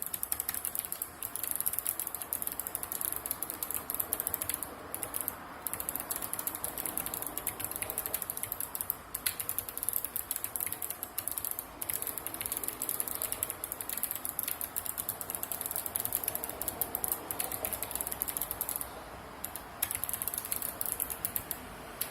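Fast, continuous typing on a Sharkoon PureWriter keyboard's Kailh Blue low-profile clicky switches: a rapid run of sharp clicks, broken by a few short pauses.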